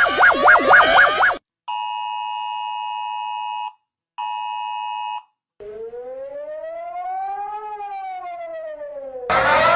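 A series of emergency alert alarm tones. A fast warbling tone cuts off about a second in, followed by two steady two-tone blasts, the first about two seconds long and the second about one, with a short gap between them. Then comes a single slow siren tone that rises and falls, and near the end a louder siren starts, rising.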